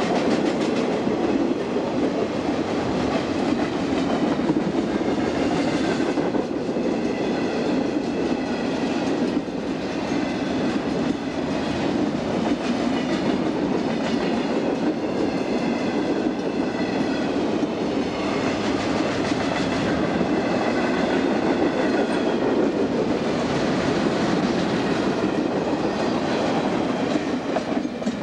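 Freight train rolling past: a steady rumble of steel wheels on the rails, with faint high, wavering ringing tones above it.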